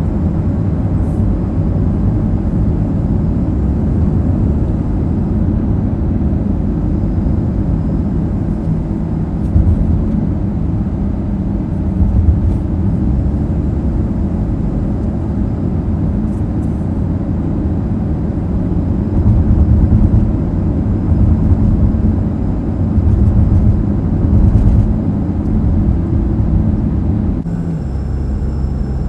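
A car driving: a steady low rumble of engine and road noise, growing a little louder for a few seconds about two-thirds of the way through.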